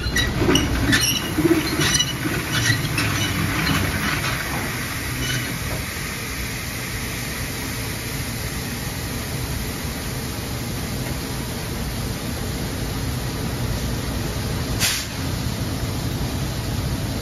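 Soybeans pouring from a hopper trailer's open bottom gate through a steel grate into a receiving pit: a steady rushing hiss over a low machinery rumble. Rattling and clicks in the first few seconds, and one sharp click near the end.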